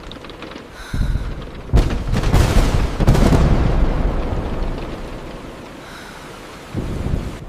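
A sharp thunderclap a little under two seconds in, then rolling thunder that rumbles and slowly fades over the next few seconds, over steady rain.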